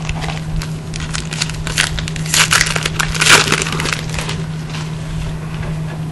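Foil wrapper of a football card pack crinkling as it is handled and torn open, a crackly rustle that is loudest a couple of seconds in.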